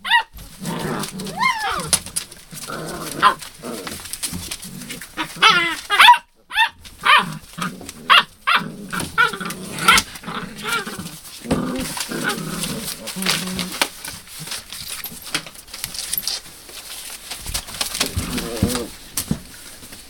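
Several hound puppies play-fighting, with a busy run of small growls, yips and whines. Scrabbling paws click and scuff on newspaper underneath.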